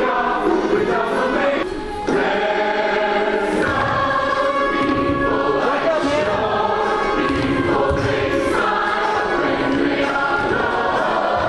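Music with a chorus of many voices singing together, with a short drop in level about two seconds in.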